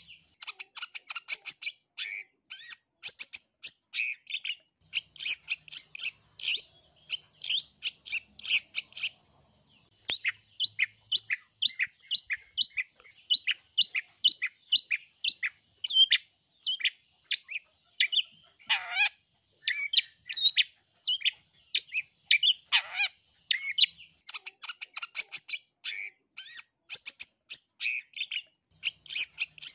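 Long-tailed shrike singing a fast, varied chatter of short notes, with a steady run of repeated notes at about three a second midway and two harsh rasping calls. A faint steady high hiss runs behind the song for much of the time.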